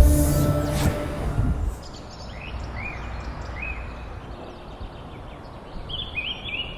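Birds chirping over a steady outdoor hiss: single short chirps that rise and fall, about two and a half and three and a half seconds in, then a quick run of chirps near the end. A deep music track fades out in the first two seconds, with a brief rush of noise at the very start.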